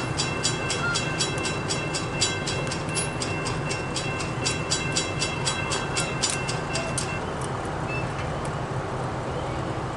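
Railroad crossing bell ringing steadily at about three strokes a second while the crossing gates lower, then cutting off about seven seconds in as the gates come fully down. A steady low rumble runs underneath.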